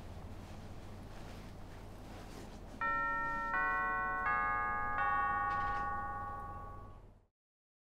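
Low steady hum of room tone, then four bell-like chime notes struck about three-quarters of a second apart, each ringing on under the next and slowly fading, before the sound cuts off abruptly about seven seconds in.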